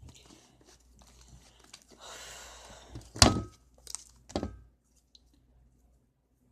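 Fluffy slime being kneaded and worked by hand: soft sticky squishing, with a sharp thud a little after three seconds and two smaller ones about a second later.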